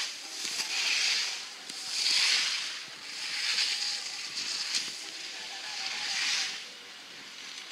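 Skis scraping and hissing over snow through a run of mogul turns, the hiss swelling and fading with each turn about every second and a half.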